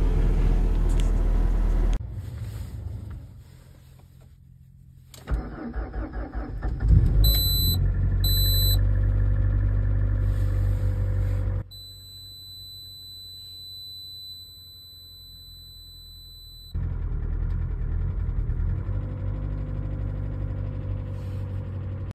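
Engines cold-started in deep frost. First a 1991 VW Passat B3's 1.8 single-point-injection engine runs at cold idle. After a cut, a Lada Vesta's starter cranks for about a second and a half and the engine catches with a rev, while dashboard chimes beep. The engine then idles fast as it warms, quieter for a few seconds in the middle.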